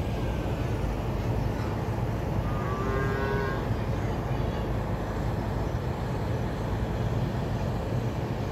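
Freight train of open wagons rolling on the line, a steady low rumble. About three seconds in, a short pitched call sounds over it for about a second.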